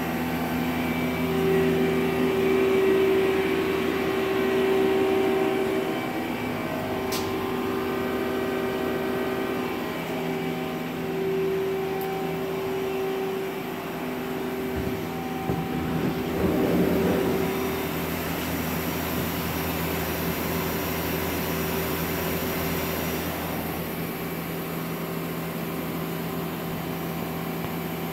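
Mazak Quick Turn Nexus 200 CNC lathe running under power, its spindle turning at about 1470 RPM: a steady machine hum made of several steady tones, with a brief louder swell about two-thirds of the way through.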